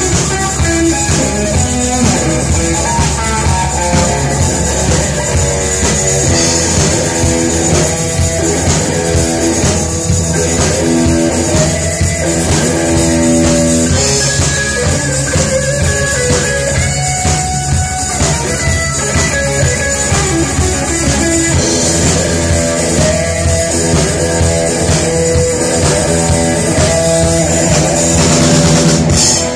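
Live rock band playing loud through the PA: electric guitars over a drum kit.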